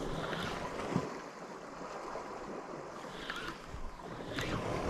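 Sea waves washing against the shore with wind on the microphone, and a few short sharp sounds in the second half.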